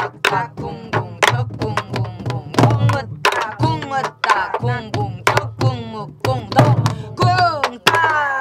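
Many sori-buk (pansori barrel drums) played together in the jungjungmori rhythm: sharp stick cracks and deep booms from the drumheads at a steady lilting beat, about two booms a second. A woman's voice chants along over the drumming.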